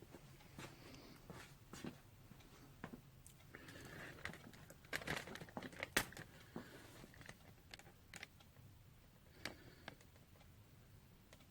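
Faint workshop handling noises: scattered light clicks and rustling, with one sharper tap about six seconds in.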